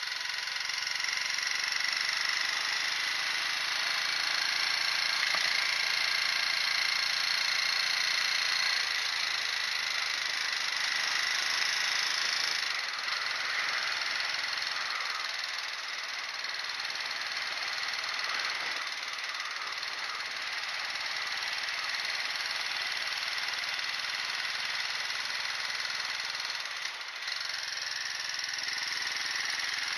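Motorcycle engine running, its low drone fading out about nine seconds in, over a steady rushing hiss.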